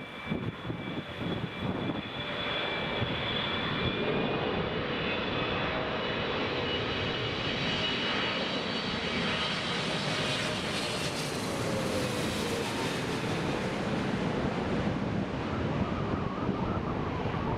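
Airliner on final approach passing low overhead, its engines running with a high whine over the engine noise. The sound brightens toward the middle as it comes over, and a tone drops in pitch as it passes.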